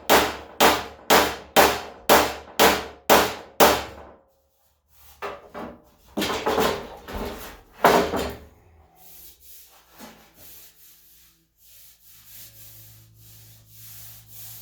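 Hammer blows on the 1978 Ford F100's steel front fender, about two a second, knocking out a small dent; they stop about four seconds in. Then rubbing and scraping on the panel, loudest a few seconds later.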